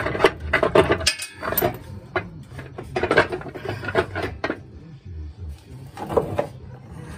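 Metal clinking and clattering in several short bursts as a 1984 Chevy wrecker's manual transmission is worked back off the clutch and flywheel.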